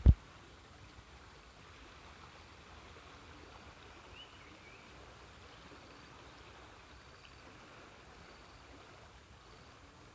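Faint, steady rush of a flood-swollen, fast-running muddy river. A single sharp low thump right at the start is the loudest sound.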